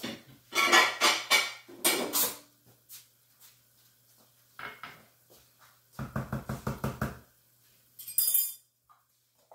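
Kitchen clatter of dishes, pots and utensils: a cluster of knocks and clinks in the first couple of seconds, then a quick rattle of about eight pulses a second around six seconds in, and a brief bright clink a little after eight seconds.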